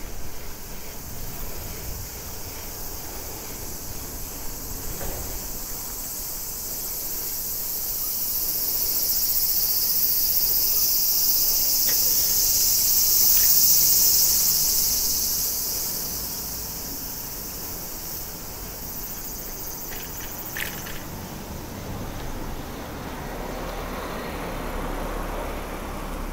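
Cicadas buzzing in a high, hissing chorus that swells to its loudest about halfway through and then fades away.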